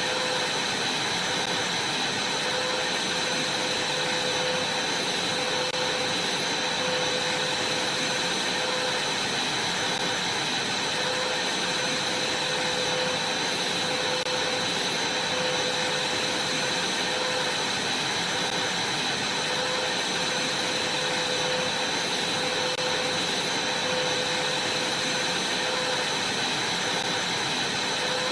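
Vacuum cleaner running steadily, a constant rush of air with a steady whine over it.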